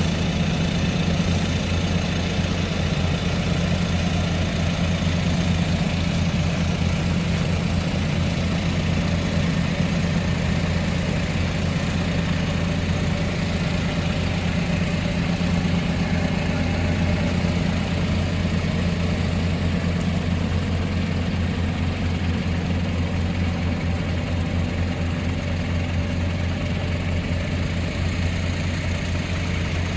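Boat's inboard engine running steadily on a gearbox test run, freshly serviced with a new propeller shaft: a low, even drone with a rapid regular beat.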